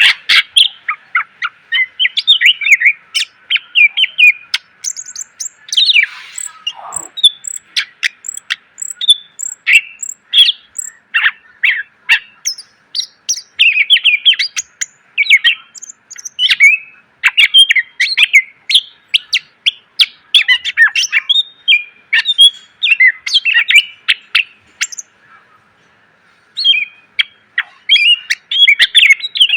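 Cucak ijo (green leafbird) singing continuously in a fast, varied stream of sharp chirps, trills and whistles, with one sliding downward note about six seconds in and a brief pause near the end.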